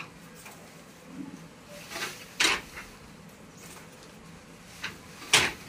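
Wooden handloom being worked by hand: sharp wooden clacks of the shuttle and beater. A pair of knocks about two seconds in, a lighter one, then a louder one. Another pair comes near the end.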